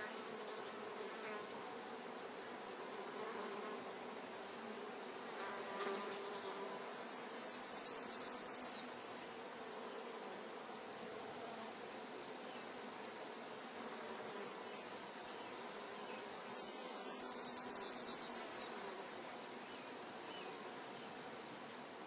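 Insect chirping: two loud, high-pitched trills of rapid pulses, each about a second and a half long and some nine seconds apart, over a faint steady hiss.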